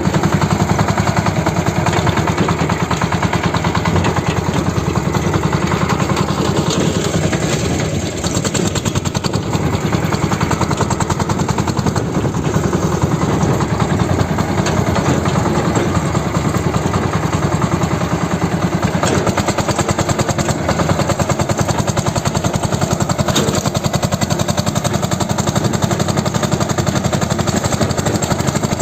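Engine of a sanedo, a motorcycle-based jugaad farm tractor, running steadily with a fast, even pulse.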